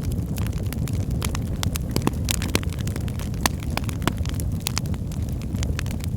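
Wood fire burning in a fireplace: a steady low rumble from the flames with frequent, irregular sharp crackles and pops of the burning wood.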